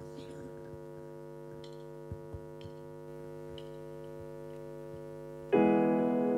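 A keyboard holds a steady sustained pad chord. About five and a half seconds in, a much louder keyboard chord comes in, opening the song.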